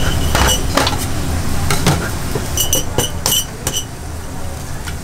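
Glass jar and the metal utensils standing in it clinking, a cluster of quick ringing taps about two and a half seconds in, as an egg is cracked over it, with scattered lighter clicks before and a steady low rumble underneath.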